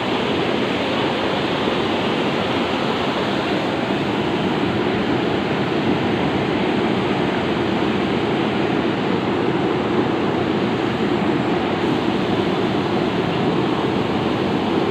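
Steady rushing of river water flowing over rocks.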